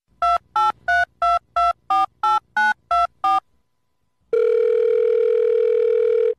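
Telephone keypad tones: ten quick dialing beeps at about three a second, as a number is punched in. After a short pause comes a steady phone-line tone lasting about two seconds, which cuts off suddenly.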